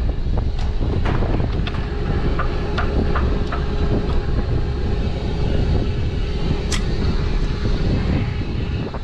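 Engine of a well-service rig running steadily with a steady hum, with scattered sharp clicks and knocks over it, the clearest about three-quarters of the way through.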